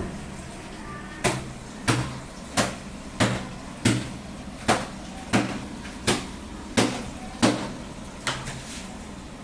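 A series of about a dozen evenly spaced knocks or thuds, roughly one and a half a second, over a low steady hum.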